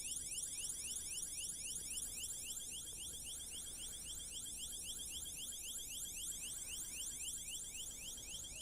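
Rapid series of short rising electronic chirps, about four a second, repeating evenly like an alarm.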